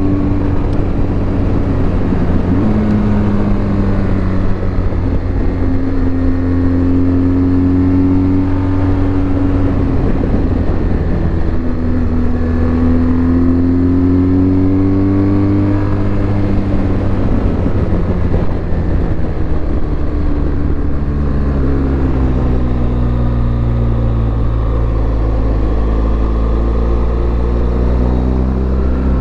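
BMW R1200GS motorcycle's boxer-twin engine running under way, its pitch climbing and dropping several times as the throttle is opened and closed, over a steady rushing noise.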